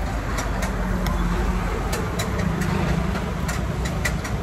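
A motor vehicle's engine running close by in street traffic: a steady low hum that swells in the middle and fades near the end, with scattered light clicks over it.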